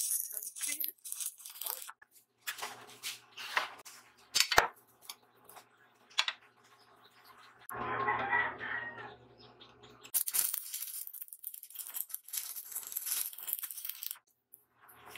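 Stick (shielded metal arc) welding on steel: the arc sizzles in several short tack bursts with sharp clicks at strikes, then burns steadily for about four seconds in the second half. A separate call-like sound lasts about a second near the middle.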